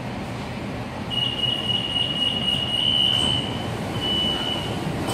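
BTS Skytrain door-closing warning tone: a high beeping that starts about a second in, pulsing quickly and then held, breaks off briefly and returns near the end. It sounds over the steady low hum of the train.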